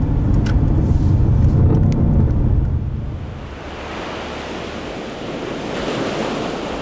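Ocean surf: waves breaking and washing in. A deep rumble for about the first three seconds fades out, and the hiss of the surf swells again near the end.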